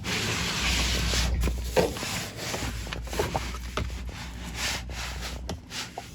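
Oil drain pan scraping as it is slid across the floor into place, loudest in the first two seconds, with a few knocks and clicks.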